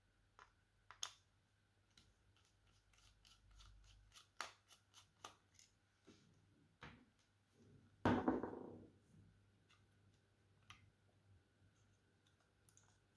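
Small precision screwdriver working tiny screws out of a plastic computer mouse's inner frame: a scatter of faint sharp clicks and scrapes, a quick run of them a few seconds in, and a louder rustle and knock of handling the plastic housing about eight seconds in.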